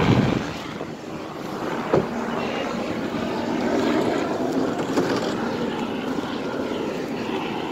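Steady rushing noise of a motor vehicle running close by, with two sharp knocks, one about two seconds in and one about five seconds in.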